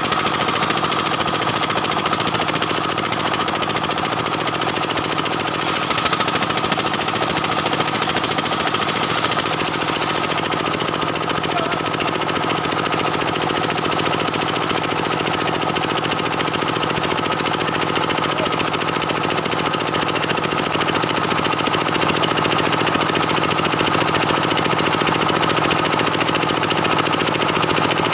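Stihl 070 two-stroke chainsaw running steadily at high revs while ripping a dense jackfruit-wood beam lengthwise.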